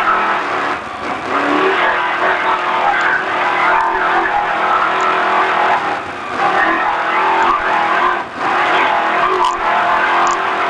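Engine of a Racer Engineering-built off-road race truck running hard, heard from inside the cab. Its sound drops briefly about three times, near the start, around the middle and about two-thirds through.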